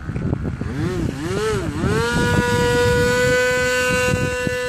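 Radio-controlled helicopter's motor whining: its pitch wavers up and down twice, then climbs to a steady high tone that holds for about three seconds, over wind buffeting the microphone.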